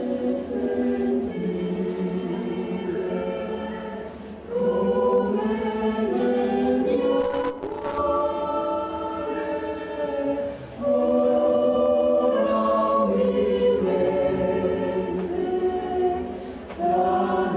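Mixed choir of men's and women's voices singing unaccompanied in several parts, in long held phrases with short breaks between them.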